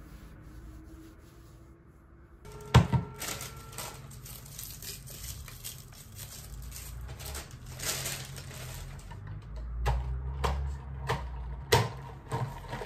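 Clear plastic wrapping rustling and crinkling as it is handled and unwrapped, with scattered clicks and knocks of things on a desk. A loud knock comes just under three seconds in.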